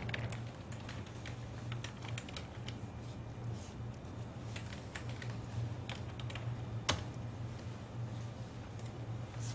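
Computer keyboard being typed on in irregular short clicks, with one sharper click about seven seconds in, over a steady low hum.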